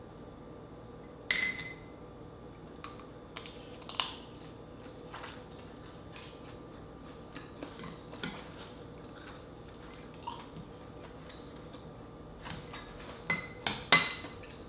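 Mukbang eating sounds: spoons clinking and tapping against glass sauce bowls and a rice bowl, with soft chewing and mouth sounds between. A ringing clink comes about a second in, and a quick run of the loudest clinks comes near the end.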